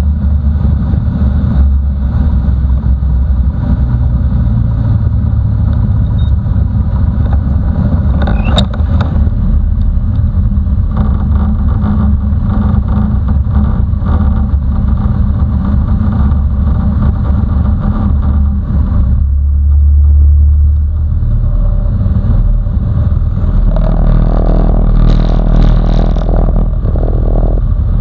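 Mustang II's single piston engine and propeller running at low power during the landing rollout and taxi, heard inside the cockpit as a loud, steady drone with low rumble. The engine note changes about two-thirds of the way through, and some clatter joins it near the end.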